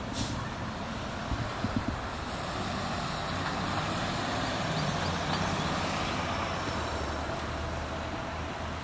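Road traffic: a steady rush of passing cars and a truck, swelling a little in the middle.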